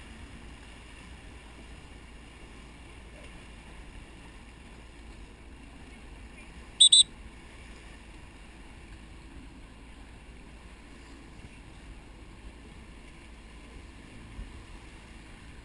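A coach's whistle blown in two short high-pitched blasts about seven seconds in, the signal for the sailors in a downwind whistle drill to make their next manoeuvre, over a steady background of wind and water noise from the boat underway.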